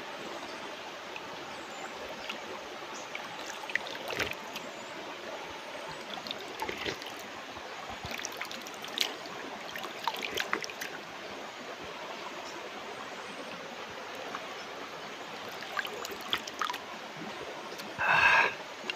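Mountain stream running over stones, a steady babble of water with scattered light clicks. A short loud burst of sound comes about a second before the end.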